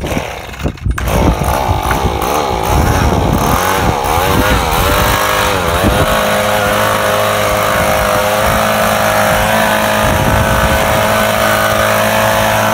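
Echo handheld leaf blower's small two-stroke engine running, blowing dust off a concrete curb. The engine speed wavers up and down for the first several seconds, then holds at a steady high speed.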